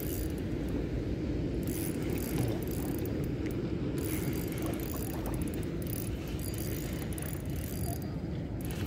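Spinning reel cranked in spells with short pauses, its gears whirring with fine rapid clicking as a hooked pike is reeled in, over a steady low rumble.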